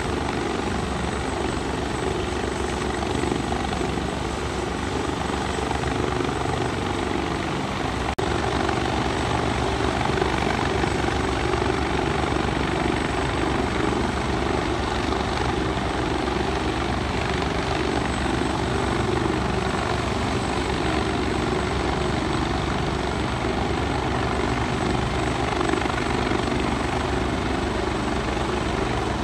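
Helicopter running on its helipad, its engine and rotor noise steady, with no change in pitch or loudness.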